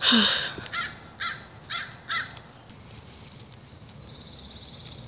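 A crow cawing: a quick run of about five caws in the first two seconds, the first the loudest.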